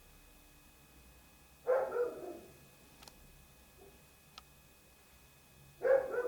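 A dog barking in short double barks, twice, about four seconds apart, with faint clicks between.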